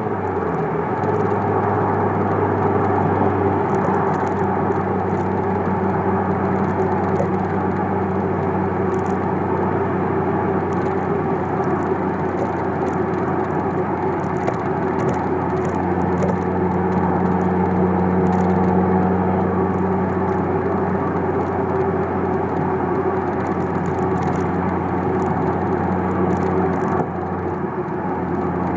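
Ford Focus RS with a Stage 1 tune, its exhaust note heard from the rear of the car while driving: a steady drone at an even engine speed over road and wind noise.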